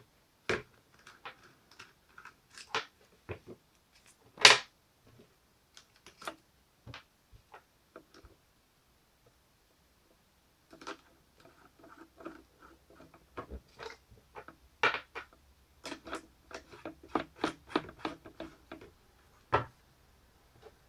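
Irregular clicks and knocks of small hard objects being handled, with one louder knock about four seconds in and a busier run of clicks in the second half. A faint low hum comes in about halfway through.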